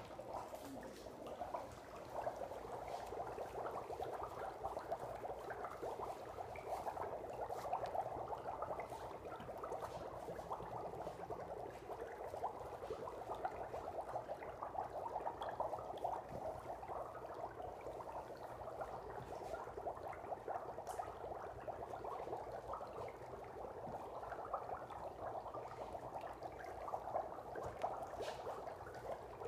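Dry ice bubbling steadily in a bowl of hot water as it turns to fog, with a few faint clicks.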